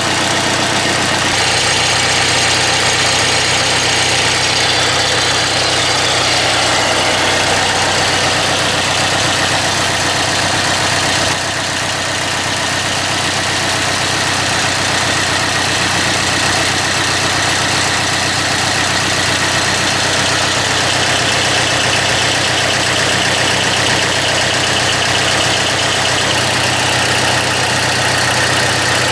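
Mitsubishi D1650 compact tractor's diesel engine running steadily at idle.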